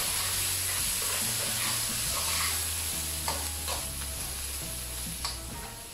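Chicken livers and tomato sizzling in a frying pan just after half a glass of white wine has been added, the wine boiling off in steam as its alcohol evaporates. The sizzle slowly dies down, with a few light clicks.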